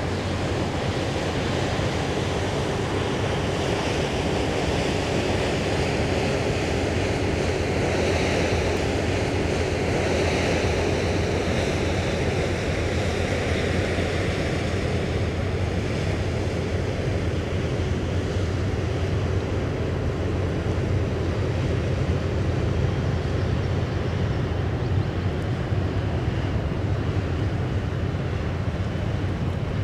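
Cruise ship Le Champlain passing close by: a steady low machinery hum under a continuous rushing wash of water and wind on the microphone.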